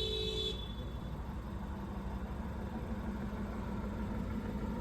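A 2015 Honda Fit's 1.5-litre four-cylinder engine idling steadily just after an oil change, with a short electronic beep from the dashboard right at the start.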